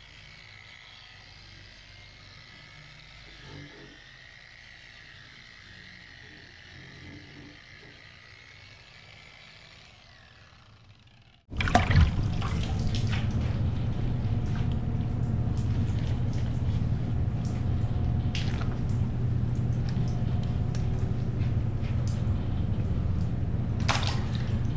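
Faint steady high-pitched chirring, then an abrupt cut about eleven seconds in to loud running water with a steady low hum and scattered clicks.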